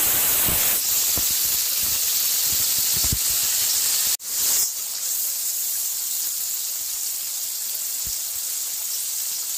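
Yakhni (mutton stock) poured into hot oil with fried onions and tomatoes in a metal pot, hissing and sizzling steadily as it hits the oil. There are a few low knocks from the slotted spoon against the pot in the first seconds. The hiss drops out for an instant about four seconds in, then carries on a little quieter.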